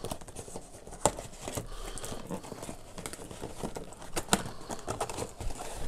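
Cardboard packaging being handled: irregular knocks and rustling, with two sharper knocks, one about a second in and one past the four-second mark.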